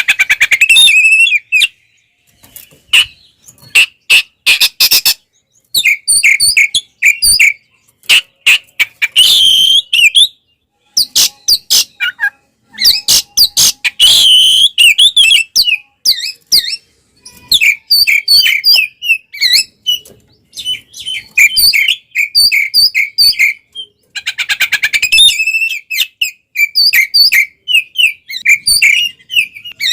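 Oriental magpie-robin (kacer) singing loudly in its aggressive fighting song: rapid phrases of repeated whistled notes mixed with dry clicking rattles, one burst after another with short pauses between.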